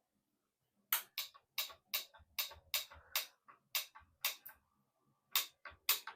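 A run of sharp mechanical clicks from the bicycle being set up, about three a second. They pause for about half a second a little before the five-second mark, then go on.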